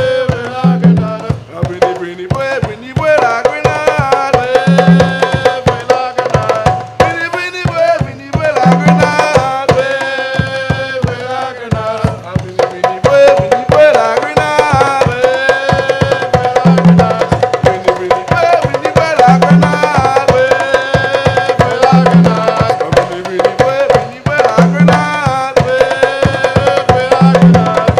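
A live percussion ensemble plays a fast, driving rhythm on drums, with a deep drum tone recurring every few seconds. A man sings a melody over the drumming.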